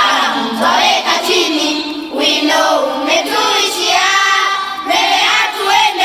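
A group of children singing a poem together as a choir, in unison.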